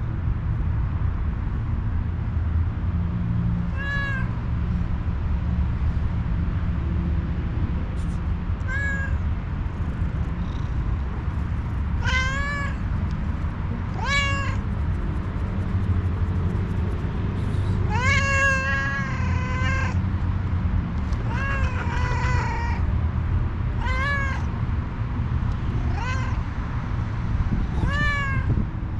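Tuxedo cat meowing over and over, about nine calls a few seconds apart, the longest a drawn-out meow of about two seconds a little past the middle: a hungry stray cat begging for food. A steady low rumble runs underneath.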